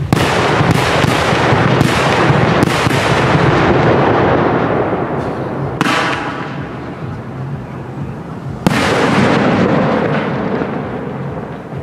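Cake fireworks firing: a quick run of loud bangs in the first few seconds over a continuous rumble, another bang about six seconds in, and a last loud bang near nine seconds in that rumbles away.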